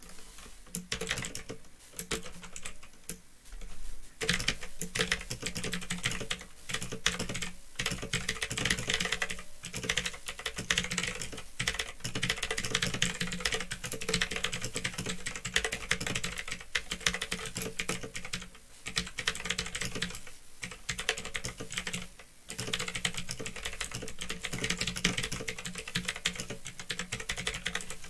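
Typing on a Phantom Tecware 87 mechanical keyboard with clicky Otemu Blue switches: a dense, continuous run of key clicks with a few brief pauses, lighter for the first few seconds. Under it runs a steady low hum from an old microphone.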